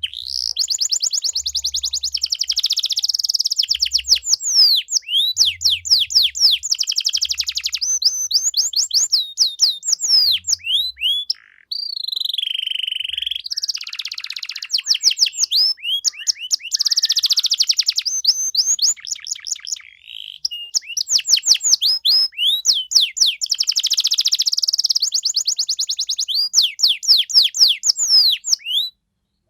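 Domestic canary singing a long, loud song of fast trilled rolls and rapidly repeated whistled notes, with short breaks about 11 and 20 seconds in; the song stops just before the end.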